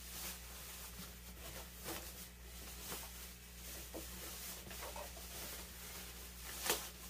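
Thin plastic wrapping rustling and crinkling as an acoustic guitar is worked out of its bag, in irregular rustles with a louder one near the end.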